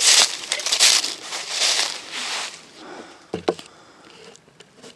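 Footsteps crunching through dry leaf litter, loudest in the first two seconds and then fading, with one brief short cry about three and a half seconds in.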